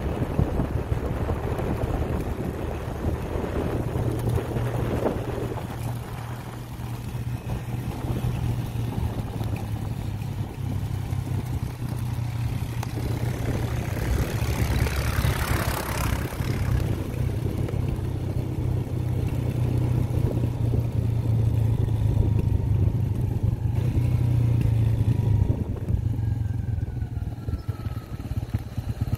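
Motorcycle engine running steadily while riding, with wind rushing over the microphone. A louder rush of noise builds for a few seconds and cuts off about sixteen seconds in.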